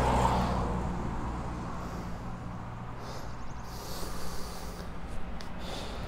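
A steady low hum, like a running engine, with a man's heavy breath about three seconds in as he strains against a hand winch, and a few faint clicks near the end.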